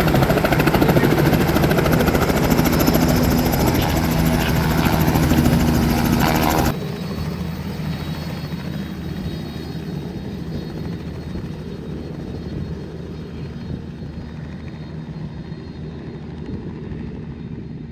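Light helicopter running loud and close, its rotor beating in a fast, even pulse. About a third of the way in it drops suddenly to a quieter, steadier sound that fades slowly as the helicopter flies away.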